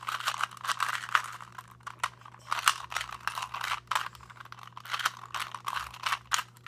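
ShengShou 2x2 plastic speed cube being turned quickly by hand during a solve: an irregular, rapid run of plastic clicks and clacks as the layers snap round.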